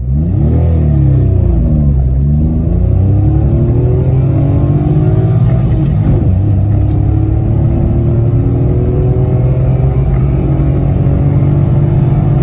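Remapped Citroen C1's 1.0-litre three-cylinder petrol engine accelerating hard from a standstill at full throttle, heard from inside the cabin. The engine note jumps up suddenly at the start and climbs steeply. It dips about two seconds in and again about six seconds in, then rises steadily to the end.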